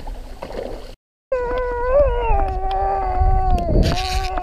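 A long, howl-like call starts a little over a second in, wavering in pitch at first and then held on one pitch for about two seconds. A short rush of noise comes near the end.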